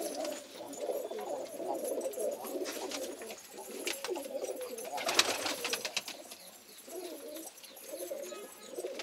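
Several domestic pigeons cooing continuously in a small enclosed loft, with a brief flurry of wing flaps around four to five seconds in.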